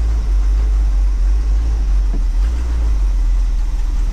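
A 1984 Chevy Champion motorhome's V8 engine running as it drives, heard inside the cab with the engine cover off: a steady low rumble.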